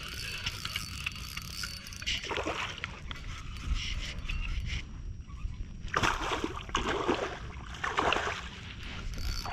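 Water splashing beside a kayak as a hooked bass is fought, in several short bursts, most of them in the second half, over a low steady rumble.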